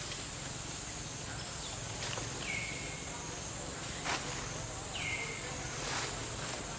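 Steady high-pitched buzz of insects, with two short calls that slide down in pitch about two and five seconds in, and a few faint clicks.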